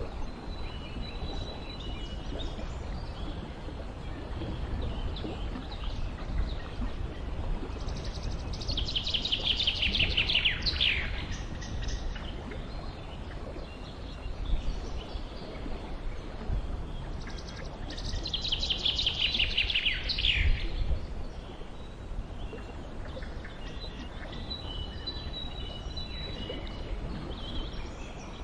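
Songbird singing twice, about ten seconds apart: each song is a fast trill of about two seconds that falls in pitch. Fainter chirps from other birds come and go over a steady low background rumble.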